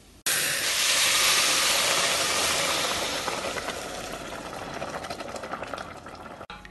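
Boiling water poured into a hot stainless steel pot of ghee-toasted barnyard millet and vegetables, sizzling with a loud hiss of steam that starts suddenly and eases off over the following few seconds as the water settles.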